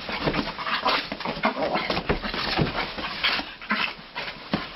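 A dog whimpering in many short, irregular cries.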